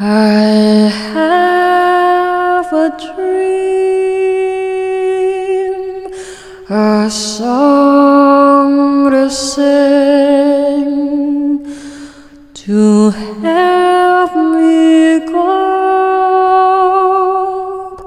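Background music: a slow, lullaby-like vocal melody sung in long held notes, in three phrases with short breaks between them.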